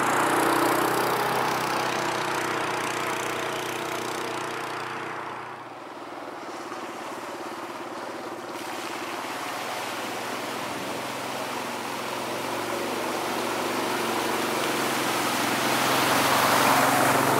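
Yamaha Grizzly 700 ATV's single-cylinder engine running. It fades to its quietest about six seconds in, then grows steadily louder as the quad approaches and churns through a muddy, water-filled trail near the end.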